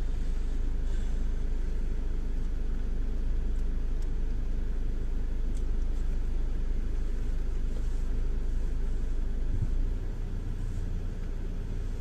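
A car's engine running, heard from inside the cabin as a steady low rumble. The rumble drops slightly in level about ten seconds in.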